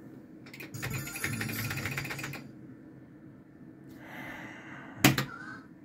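Multi Rom de Luxe gaming machine clicking: a rapid run of clicks for about a second and a half, then a soft hiss, and one sharp, loud click near the end.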